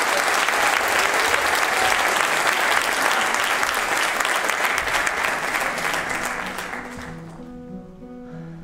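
Theatre audience applauding, the clapping fading out about seven seconds in; a soft, slow instrumental melody of single held notes then begins.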